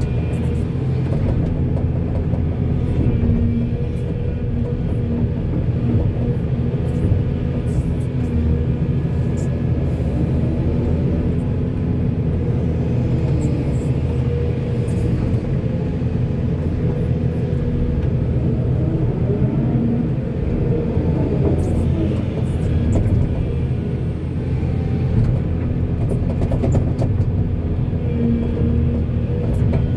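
Heavy diesel construction machinery, a backhoe working beside a dump truck, running steadily as a continuous deep rumble. Scattered brief clanks and clicks sound over it.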